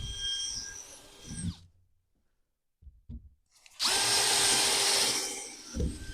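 Power drill boring into wood in two spells: it winds down about a second and a half in, and starts up again louder about four seconds in before easing off near the end.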